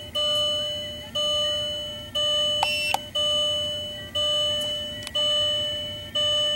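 Electronic warning chime dinging about once a second, each ding sharp at the start and fading before the next, with two faint clicks about midway.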